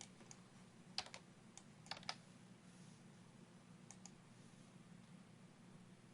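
A few faint computer clicks, several in quick pairs, over a low steady hum.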